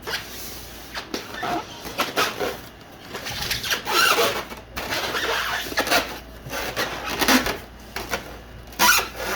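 Cardboard and plastic packaging being cut open and handled: a run of irregular scraping, crinkling and rustling noises.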